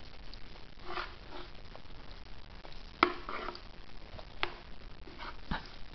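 A metal spoon clinking and scraping in a plastic bowl of pastina as a toddler feeds himself: a few separate sharp clicks, the loudest about three seconds in.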